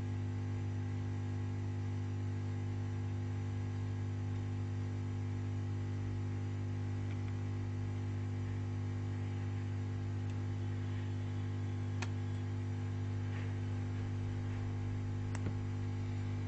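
Steady low electrical hum with a few faint clicks, about twelve and fifteen seconds in.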